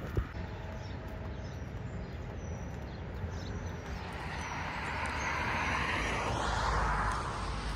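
A vehicle passing, its noise swelling to a peak about six to seven seconds in and then fading, over a low rumble of wind on the microphone.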